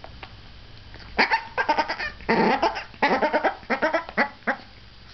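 Yorkshire terrier barking in a quick run of high, yappy barks and yips, starting about a second in and stopping shortly before the end.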